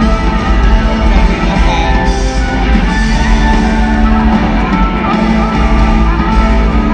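Live rock band playing in an arena, electric guitars and drums, loud and steady with heavy bass, heard from far back in the hall.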